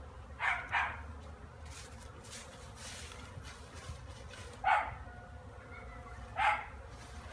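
A dog barking: two quick barks about half a second in, then single barks a few seconds later. Under the barks runs a faint, steady hum from the honeybees flying around the hive.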